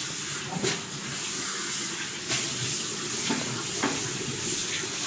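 Kitchen tap running into a sink as hands are rinsed under it, a steady hiss of water with a few light knocks.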